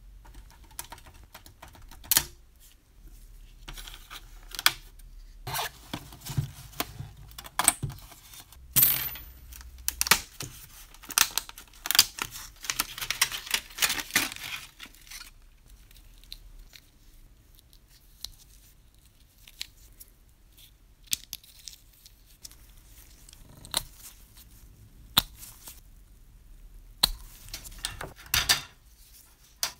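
Stiff clear plastic window sheet crackling and rustling as it is handled and pressed into the thin metal body of a 1950s Joustra tin toy bus, with scattered sharp clicks of the metal. It is busiest in the first half. Near the end, small tin seats click into slots in the metal floor plate.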